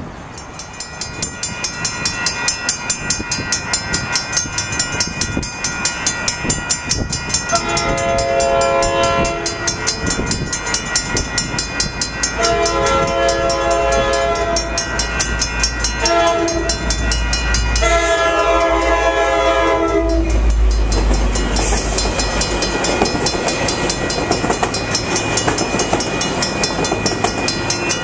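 Coaster commuter train led by an EMD F40PH diesel locomotive sounding its air horn for a grade crossing: long, long, short, long, over a crossing bell ringing steadily and the low rumble of the diesel. After the last blast the louder rushing noise of the train going by takes over.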